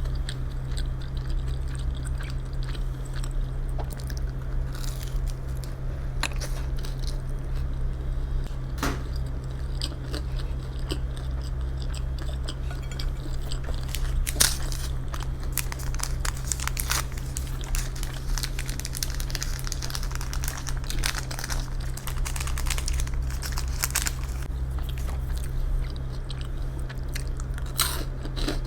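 Close-miked eating: chewing and biting, with scattered sharp clicks and crunches that come thickest in the middle of the stretch, over a steady low hum.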